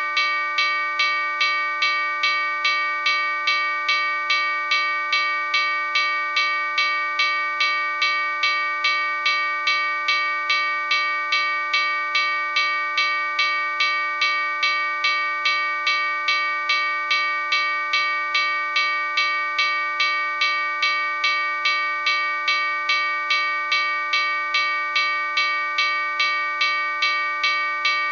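Railroad crossing bell ringing steadily, evenly spaced strikes at about two a second, each ringing on into the next.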